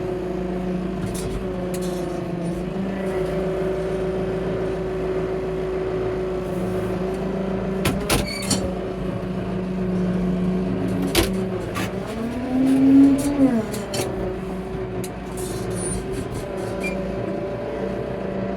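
Tractor engine running steadily under a low hum while it pushes silage, with a few sharp knocks and clunks. Briefly the pitch rises and falls back again, the loudest moment.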